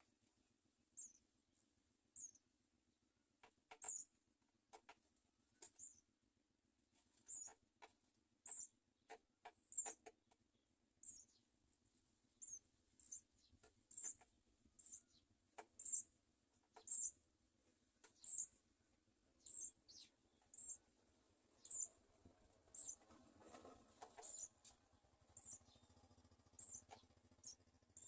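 House sparrow nestlings giving short, very high-pitched begging squeaks, repeated about once a second.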